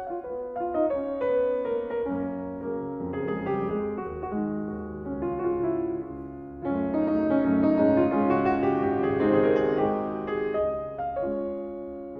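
Background music played on piano or keyboard: a run of quick notes that grows fuller and louder from about seven seconds in.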